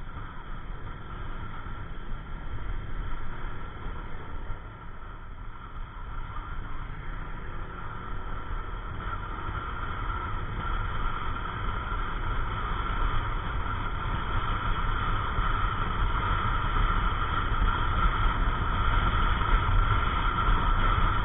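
Ride noise of a Yamaha NMAX 155 scooter under way: the engine running with wind rushing over the microphone. It grows steadily louder through the second half.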